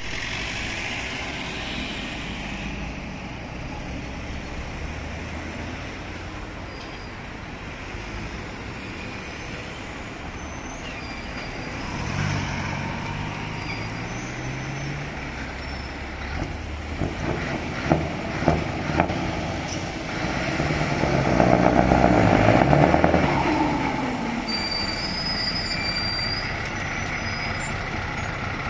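Scania 164L 620's 16-litre V8 diesel on open exhaust pipes running with a deep rumble, its pitch rising briefly a little before halfway. Past the middle come three sharp knocks, then the engine swells much louder for a few seconds and falls back to a steady rumble.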